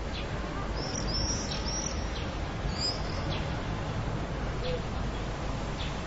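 Swallows twittering in short, high chirps, clustered about a second in and again near three seconds, over a steady low rumble of distant traffic.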